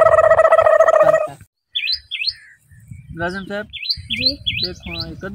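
Birds chirping in short sharp calls: two about two seconds in, then a quick run of five near the end. A loud held tone with overtones comes first, lasting about a second.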